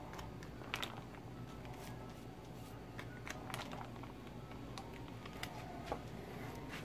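Crumpled magazine paper crinkling and rustling in a few short, separate crackles as it is pressed and dabbed onto wet spray paint, over a low steady hum.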